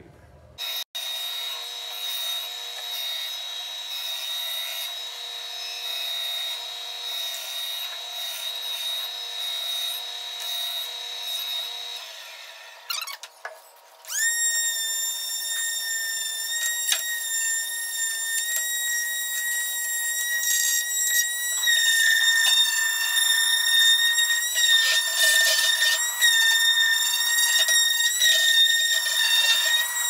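Electric palm sander running against wood with a steady high whine and the rasp of sandpaper on the wooden birdhouse pieces. It stops about twelve seconds in, starts again sharply a second or two later at a lower pitch and louder, and runs on.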